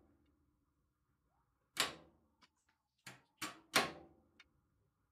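Wood-burning stove being tended by hand: a few sharp knocks and clunks, one about two seconds in and three close together a second later, over a faint steady hum.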